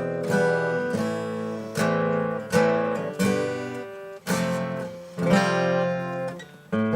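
Epiphone FT-130 steel-string acoustic guitar strummed in chords, each strum ringing out before the next, about eight strums, with a short gap near the end; the guitar is freshly set up with its action lowered.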